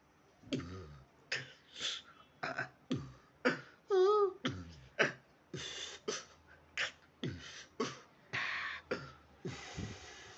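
Vocal beatboxing imitating a keyboard's drum and percussion sounds one at a time, as a keyboard player does when pressing keys to check each sound. It is a string of separate, unevenly spaced vocal drum hits, with a short wavering tone about four seconds in and a long hiss near the end.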